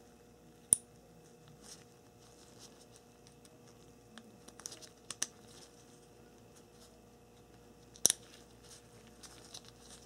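Crimped wire terminals snapping into the back of a plastic automotive connector housing: two sharp clicks about seven seconds apart as each terminal latches in, with light plastic handling ticks between them.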